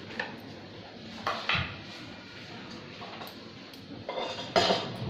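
Clatter of dishes and utensils: scattered clinks and knocks, with sharper ones about a second and a half in and a louder run near the end.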